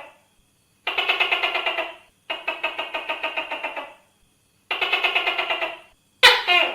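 Tokay gecko calling: four rattling runs of about a second each, rapid pulses at roughly ten a second, then a louder, sharper call near the end that falls in pitch.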